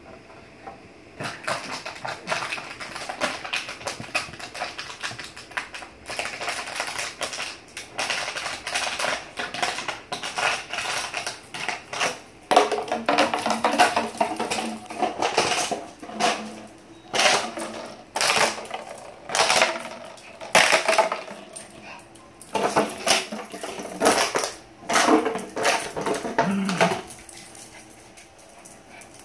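Empty plastic bottle crackling and crunching in irregular bursts as a small dog bites and squeezes it.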